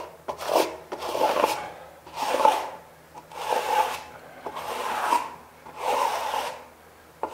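Steel trowel scraping across Kerdi waterproofing membrane set in wet thinset, in about six firm strokes roughly a second apart. The strokes smooth the membrane flat to press out a trapped air bubble.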